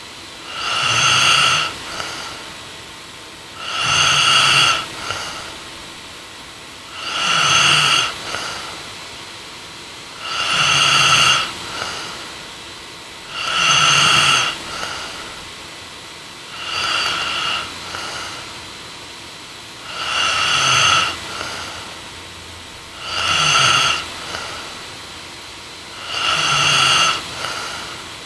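A young woman snoring in her sleep, steady and rhythmic, one snore about every three seconds, each followed by a shorter, softer one.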